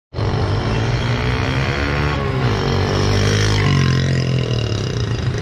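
Roadside traffic: a motor vehicle's engine running close by, its pitch rising and falling as it revs or passes.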